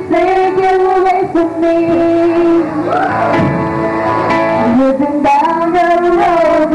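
Two women singing a duet into handheld microphones, holding long notes with vibrato, over instrumental backing music with guitar.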